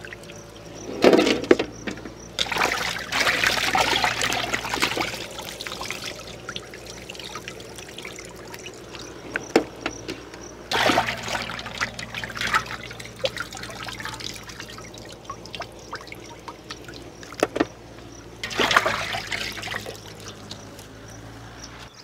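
Water splashing and trickling as dressed quails are washed by hand in a large aluminium pot and lifted out with water running off them. It comes in several bursts with quieter stretches between.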